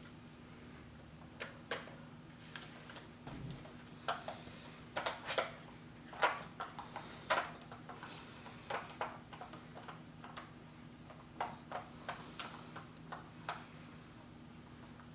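Irregular light clicks and taps of plastic and metal playpen parts being handled and fitted together during assembly, with a few sharper knocks about five to seven seconds in, over a faint steady low hum.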